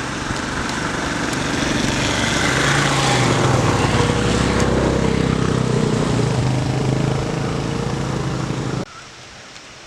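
A small engine runs, growing louder to a peak around the middle and then easing off, over a steady rushing noise; the sound cuts off suddenly near the end.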